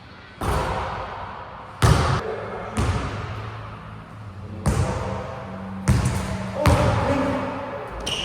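A basketball bouncing on a court: about six heavy bounces at uneven intervals, each fading out over a second or so.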